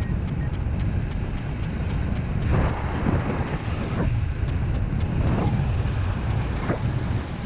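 Wind from the paraglider's flight rushing over the microphone: a steady low rumble with several louder gusts.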